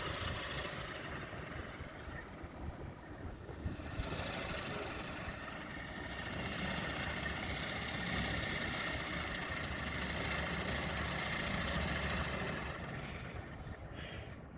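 Strong gusty wind rumbling on the microphone, with a steady howl that swells in the middle and fades near the end.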